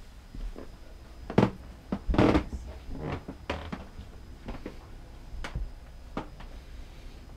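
A series of irregular soft knocks and thumps inside a yacht's cabin, about one a second, the loudest and longest about two seconds in.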